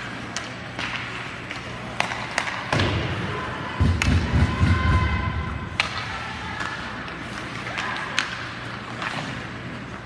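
Sharp knocks and heavier thuds of game play, echoing in a large hall, with a loud low rumble of thuds around the middle.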